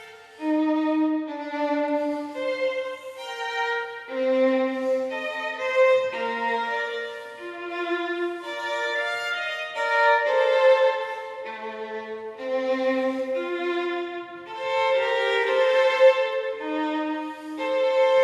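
Background music: a slow bowed-string melody, violin-led, of held notes that change pitch every second or so.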